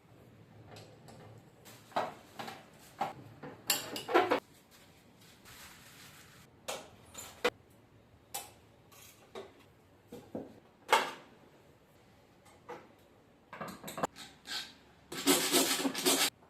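Metal parts and hand tools clinking, knocking and scraping at irregular moments while a shock absorber is worked on, ending in about a second of dense metallic rattling near the end.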